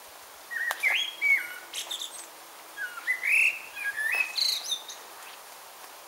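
A songbird singing two whistled phrases, the notes stepping up and down in pitch, each phrase ending in higher, quicker twittering notes.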